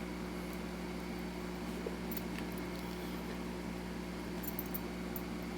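A steady low electrical or fan-like hum, with a few faint light clicks and ticks.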